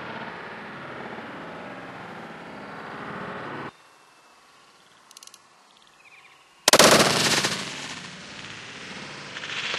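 Wind rushing over the microphone, cutting off suddenly about a third of the way in. After a few faint clicks, a single loud rifle shot about two-thirds of the way in, dying away over about a second, with a fainter sound near the end.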